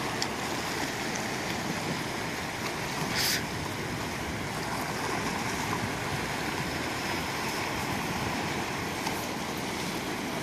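Steady wash of sea surf against the rocks, with a brief hiss about three seconds in.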